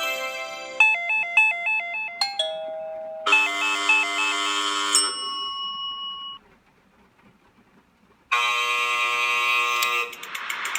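A series of electronic doorbell and chime sound effects, one after another: a short chime, a quick alternating two-tone melody, a ding-dong chime that fades out, about two seconds of silence, then a buzzing electronic bell tone, giving way near the end to a rattling ring.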